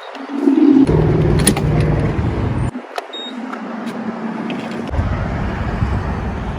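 A motor vehicle running close by. Its low rumble comes in about a second in, drops away near three seconds with a steady hum left, and returns near five seconds, with a few sharp clicks along the way.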